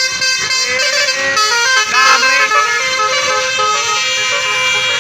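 A bus's basuri telolet horn playing a quick melody of stepped notes.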